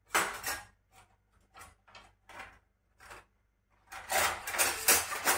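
Off-screen handling noises: a loud scrape, then about five short ones spaced irregularly, then a longer, denser run of scraping and rubbing near the end.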